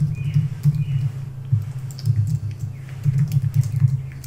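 Typing on a computer keyboard: an irregular run of key clicks with low thuds as the keys are struck.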